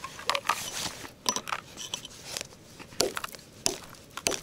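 Ice and snow crunching and cracking in a string of irregular sharp crunches, about ten in all.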